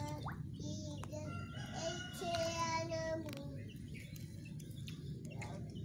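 A young child's voice in a drawn-out, sing-song call for about two seconds near the middle, over a steady low background hum.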